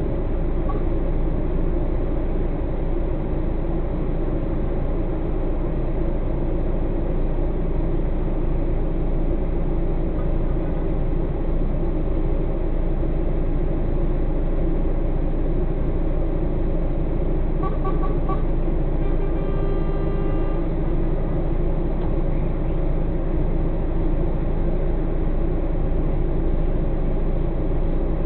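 Heavy truck's diesel engine idling steadily while the truck stands still, a constant low rumble heard from inside the cab. A brief high beeping sound comes in about two-thirds of the way through.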